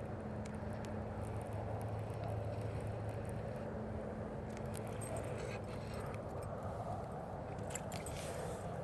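Steady outdoor background noise with a low hum that fades out a few seconds in, and faint small clicks scattered through the second half.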